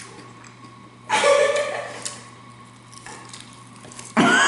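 A person eating with a full mouth: a short, muffled vocal sound about a second in and another voice sound starting near the end, with faint chewing between.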